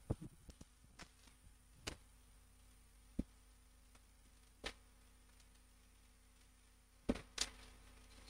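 A quiet church with scattered soft knocks and clicks, with a louder pair about seven seconds in.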